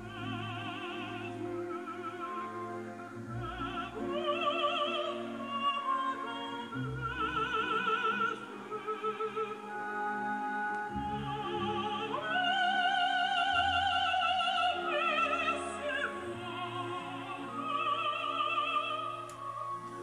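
Recorded operatic singing with orchestral accompaniment, played through a Tannoy Cheviot loudspeaker's 12-inch dual-concentric driver. The singer's notes carry a wide vibrato, with a long high held note about twelve seconds in.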